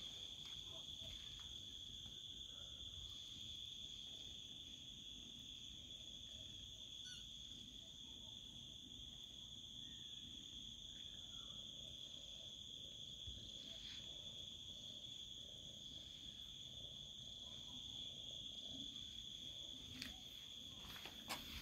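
Crickets trilling steadily at one high pitch, with a few faint ticks, mostly near the end.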